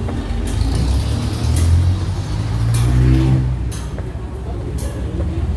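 Low rumble of a motor vehicle engine running nearby, its hum swelling about three seconds in, with footsteps on concrete stairs about once a second.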